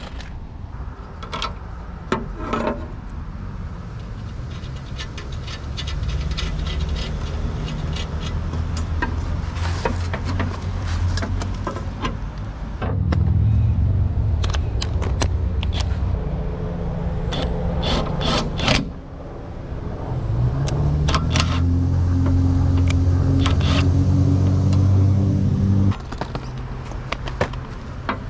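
Cordless drill running under load in three long runs, driving screws through steel support straps into the bench's hardwood slats; the last run spins up and cuts off sharply. Between the runs come small metal clicks and rattles of screws being handled.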